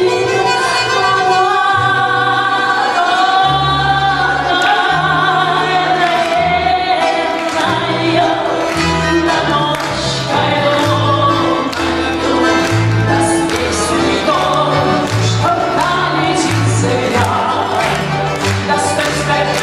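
A woman singing a Russian romance in long held notes with vibrato, accompanied by a folk ensemble of balalaikas and bayan over a plucked bass line. Later the balalaikas strum in a quick, even rhythm.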